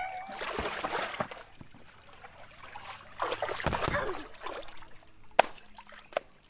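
Water splashing in a shallow inflatable pool as a boy sweeps a foam pool noodle through it, in two bursts a few seconds apart. Two sharp knocks follow near the end.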